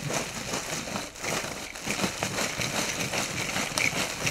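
A steady run of rustling with many small clicks and knocks, like things being handled.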